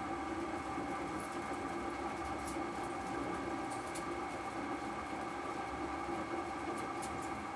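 CNC lathe running steadily, its spindle turning the workpiece while the tool cuts the ball shape, a hum of several steady tones. Occasional faint ticks on top.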